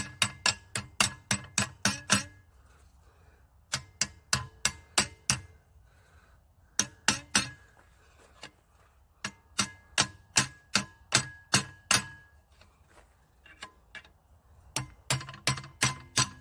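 Hand hammer striking the fork's steel tines over a socket used as a mandrel in a bench vise: runs of sharp metal-on-metal blows, about three or four a second, some ringing briefly, broken by short pauses.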